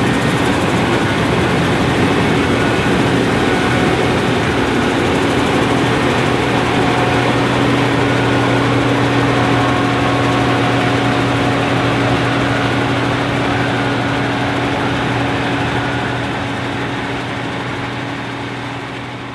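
International 1480 Axial-Flow combine's turbocharged DT436 six-cylinder diesel running steadily while the machine harvests corn, fading out near the end.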